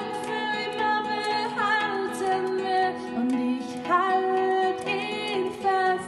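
A woman singing a slow ballad with long held notes that slide between pitches, accompanying herself on a steel-string acoustic guitar.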